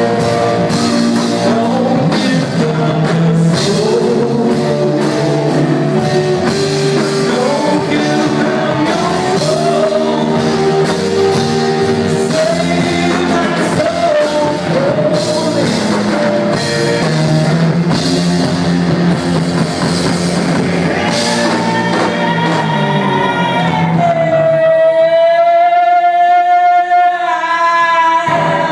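Live rock band playing a slow song with singing, electric guitar and drums. About 24 seconds in, the band drops away, leaving one long held note.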